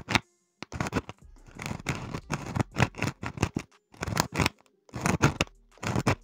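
Irregular run of short scratching and scraping strokes from hands and tools working on an oval car speaker, with a few brief pauses.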